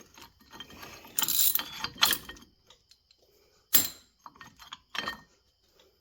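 Irregular metallic clicks and clanks of a brake caliper and pads being handled and fitted back over the rotor, with a few sharper knocks later on.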